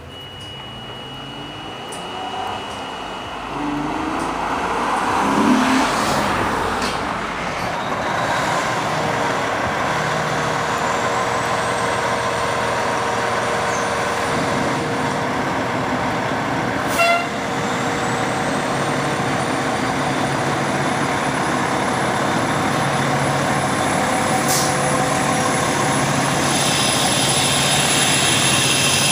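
Fire engine's diesel engine running, growing louder over the first eight seconds or so, then running steadily. A short sharp burst comes about seventeen seconds in, and the engine picks up again near the end as the truck pulls out.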